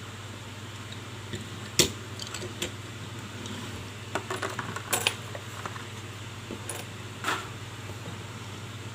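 Small hard objects being handled: scattered light clicks and clatter, with one sharp knock a little under two seconds in and a quick run of clicks around four to five seconds, over a steady low hum.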